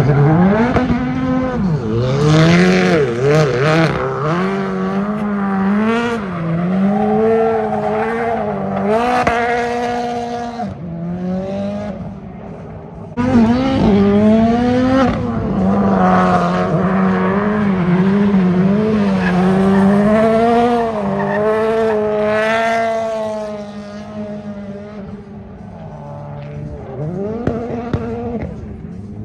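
Car engine held at high revs during drifting and donuts, its pitch swinging up and down as the throttle is worked, with tires squealing. The sound sags about 11 seconds in, comes back suddenly and loud at about 13 seconds, and drops away after about 24 seconds.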